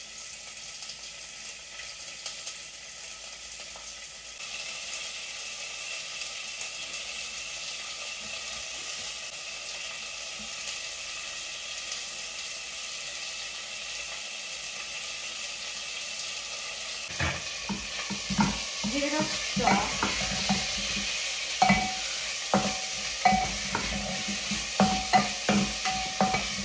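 Chicken pieces sizzling steadily in hot oil in a pot, getting louder about four seconds in. From about two-thirds of the way through, a spatula scrapes and knocks against the pot as the chicken is stirred.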